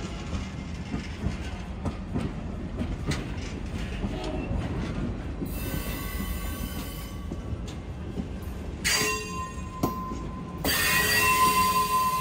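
Passenger cars of a slow-moving train rolling past close by, steel wheels clicking over the rail joints. From about halfway through the wheels begin to squeal, and near the end a louder, steady high squeal sets in.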